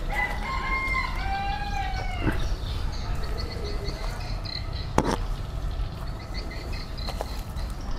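A rooster crowing once near the start: a call of about two seconds that holds, then arches up and falls away. A single sharp click comes about five seconds in, over a steady low rumble.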